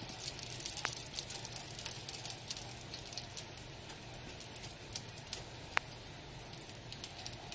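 Hot vegetable oil sizzling and crackling in a cast iron skillet as beef chimichangas fry, with a couple of sharper ticks.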